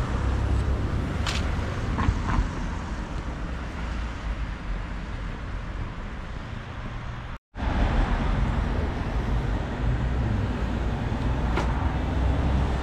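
Road traffic: a steady low rumble of motor vehicles, with a few light clicks. The sound cuts out completely for a moment about seven seconds in, then resumes.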